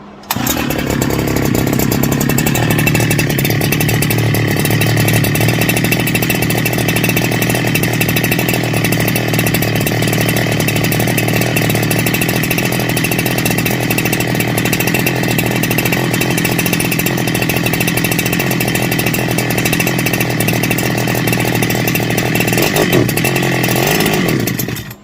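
Husqvarna 365 Special two-stroke chainsaw engine running steadily just after being restarted on a freshly fitted ignition coil, still cold.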